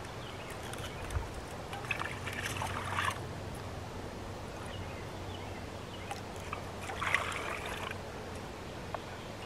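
Water sloshing and trickling in two short spells as a soft water bag is dipped into a small dug hole of muddy water, with a soft thump about a second in.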